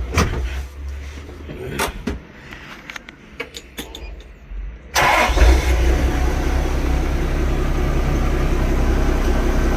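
A scatter of clicks and knocks over a low hum, then about five seconds in a forklift's engine suddenly comes up loud and holds steady as the truck is tested for drive after its stuck inching cable was freed.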